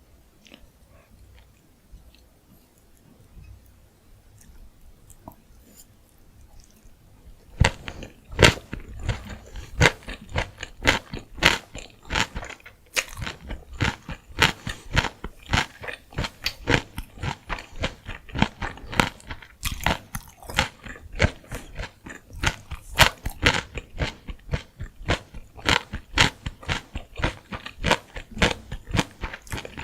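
Close-miked chewing of gimbap: crisp, wet crunching clicks come several a second. A quiet stretch with only a few faint clicks leads in, and the chewing starts about a quarter of the way through.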